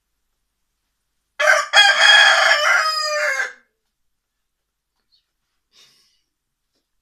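A rooster crows once, about a second and a half in: a short first note, then a long drawn-out call that falls in pitch at the end.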